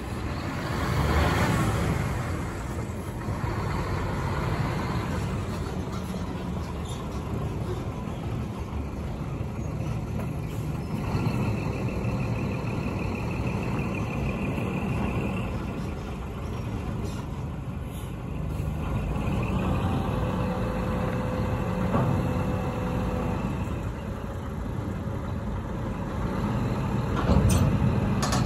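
Scania P380 8x4 dump truck's diesel engine running as the truck pulls up and stops, with air-brake hissing, then idling steadily. The engine gets louder near the end as the hydraulic tipper body starts to lift.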